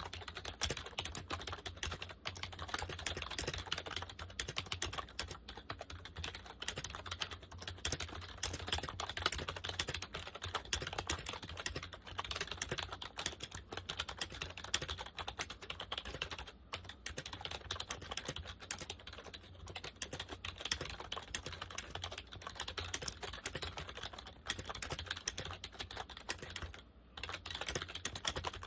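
Compaq KB-3923 rubber dome keyboard being typed on steadily and quickly, a dense run of soft key clatter with a couple of brief pauses, about midway and near the end.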